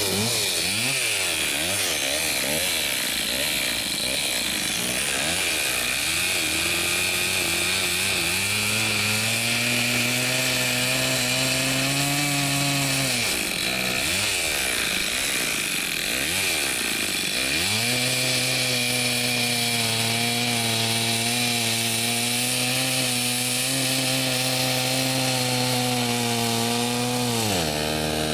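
STIHL MS 260 two-stroke chainsaw running and cutting through a log. Its engine speed wavers for the first several seconds, then holds steady under load, dipping and picking up again about halfway through and dropping near the end.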